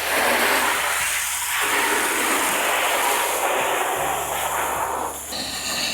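A steady, loud rushing hiss, its tone shifting about five seconds in.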